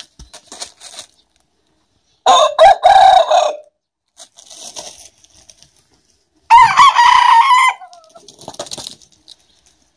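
Roosters crowing twice in turn, an aseel and a black bantam: a lower crow about two seconds in, then a higher-pitched crow that trails off with a falling end about six and a half seconds in.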